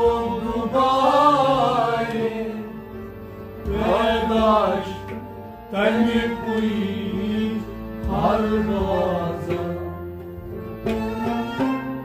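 Harmonium and bowed sarangi playing a slow melody in Kashmiri Sufi devotional music: the harmonium holds steady notes while the sarangi plays phrases that bend and waver in pitch.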